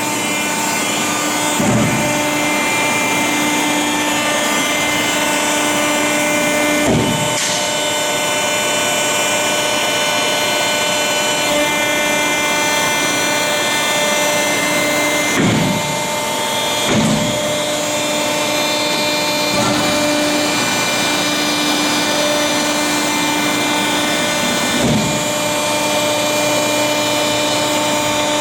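Selco HLO-608AR40 horizontal baler running under its 40-hp electric motor and hydraulic drive: a steady mechanical hum with several held tones, broken by a short low thump about five times.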